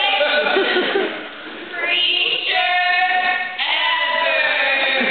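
Two young women's voices in unison into a handheld microphone, stretching their words into long, steady, sung-out notes held about a second at a time, with short breaks between them.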